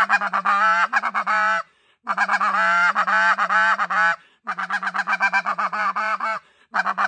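NoCo White Out snow goose call blown in rapid runs of high, yelping goose notes over a steady low buzz, imitating the buzzing note of snow geese. Four runs, with short breaks between them.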